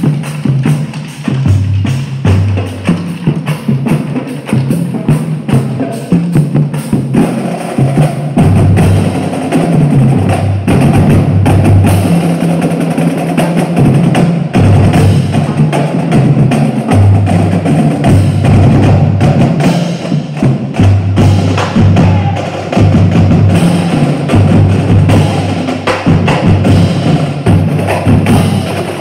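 Marching drumline playing loud and without pause: rapid snare drum strokes and rolls over a set of bass drums of different pitches playing a shifting pattern of low notes.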